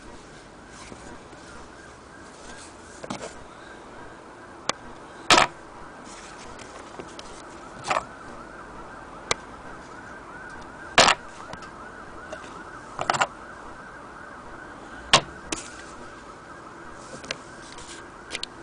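Handling noise: about nine sharp clicks and knocks at irregular intervals, the loudest about five, eleven and fifteen seconds in, as a stitched fabric sample is handled beside a hand-crank sewing machine. Under them runs a faint, steady, wavering tone.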